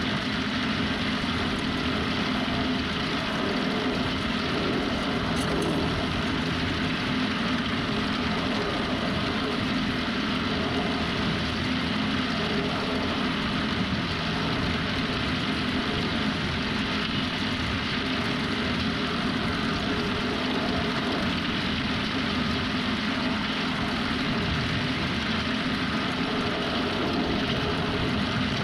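Silage machine's pickup gathering cut grass off the field, running steadily with the machine's engine underneath, an even mechanical rumble and rattle.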